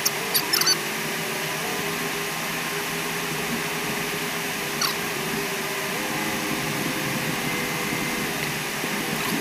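Steady rushing noise of an off-road vehicle driving on a desert track, heard from inside the cabin. A few short squeaky clicks come in the first second and once about five seconds in.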